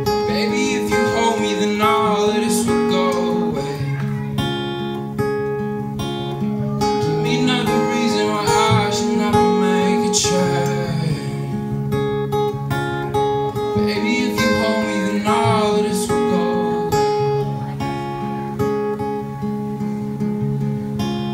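Live acoustic guitar, strummed and picked chords ringing steadily, with a man singing along in three phrases and guitar alone between them.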